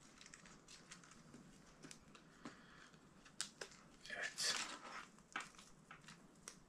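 Leatherman trauma shears closing on a strap and cutting through it in a single stroke: faint clicks and snips of the blades and handling, with a sharper click or two about three and a half seconds in.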